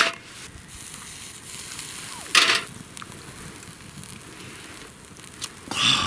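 Wood campfire and shichirin charcoal grill crackling over a steady hiss, with scattered sharp pops. About two and a half seconds in comes a short loud sizzle, fitting a slice of beef tongue laid on the hot grill, and a louder, steady-pitched sound begins near the end.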